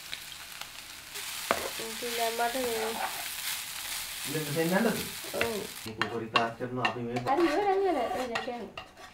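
Food sizzling as it fries in hot coconut oil while it is stirred in the pot. About six seconds in the sizzle stops, and a run of clicks like plates and cutlery follows. Short voice-like sounds rise and fall over it.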